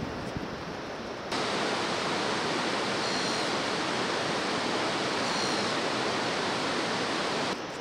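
Steady rush of a white-water river in a gorge, an even hiss with no rhythm. It jumps suddenly louder about a second in and drops back just before the end.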